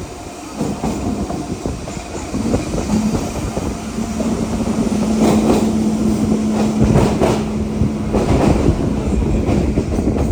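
A train running past, its wheels clattering over the rail joints, with a steady hum that starts about two seconds in and fades near the end.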